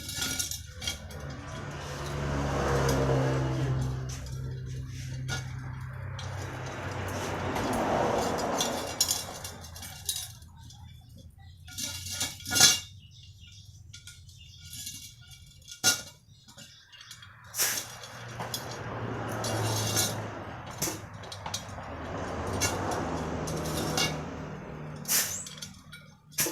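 Metal wheel spokes clinking and knocking as they are threaded through the hub and rim by hand, in scattered sharp clicks. A vehicle engine swells up and fades away twice in the background.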